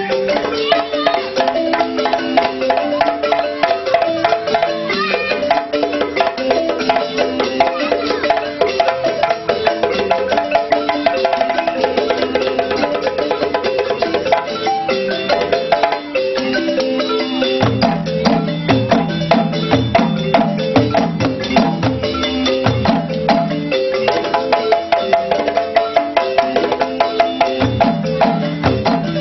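Balafons, West African wooden xylophones with gourd resonators, playing a fast, repeating melody. About eighteen seconds in, low drum strokes join in, with a short break near the end.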